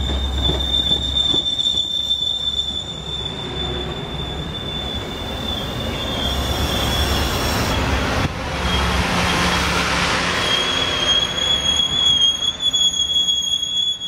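Metra bilevel passenger cars rolling past as the train pulls out, with a steady low rumble of the wheels. A thin, high wheel squeal rings through the first five seconds or so and comes back from about ten seconds in.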